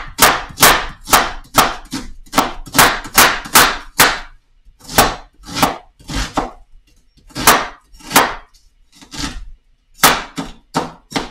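A large kitchen knife chopping an onion on a wooden cutting board, each stroke a sharp knock of the blade on the wood. Quick even strokes, about two or three a second, for the first four seconds, then slower and uneven ones.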